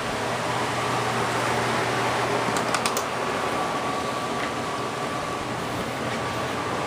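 Steady fan-like rushing room noise with a faint hum, and a few light clicks about three seconds in.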